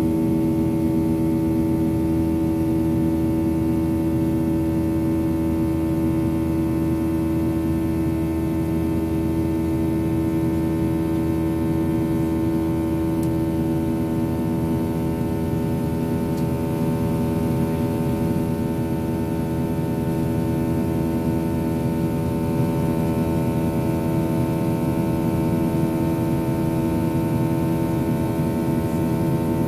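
Boeing 737-800's CFM56-7B turbofan engines heard from inside the passenger cabin in flight: a steady drone with several steady humming tones layered over it.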